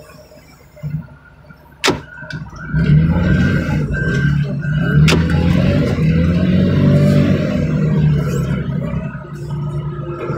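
A sharp click, then a car engine starts up about three seconds in and runs loudly, its pitch rising and falling.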